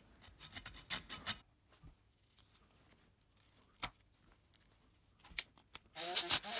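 Rapid scraping strokes and clicks of a small hand tool working a small wooden part, followed by a single sharp click near four seconds in. Near the end a screwdriver drives a small screw into the wooden model, with louder scraping and squeaking.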